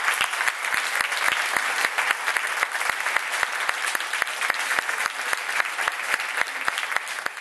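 Theatre audience applauding, a dense steady clapping that holds at full strength and falls away right at the end.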